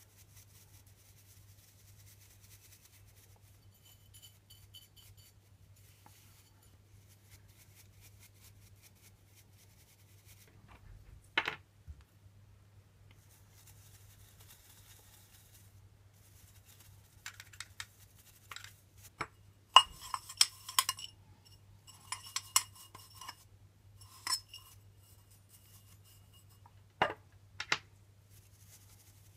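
Brush bristles scrubbing coffee grounds off the parts of a taken-apart Porlex Mini hand coffee grinder, with sharp metallic clinks and taps as the stainless steel parts are handled, most of them in a cluster about two-thirds of the way through. A faint steady low hum runs underneath.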